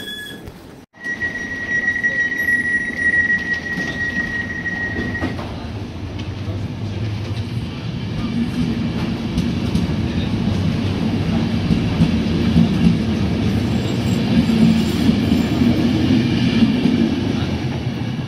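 Passenger train coaches rolling out past the platform: a steady high squeal for the first few seconds, then the continuous rumble and rattle of the wheels on the track, growing a little louder toward the end.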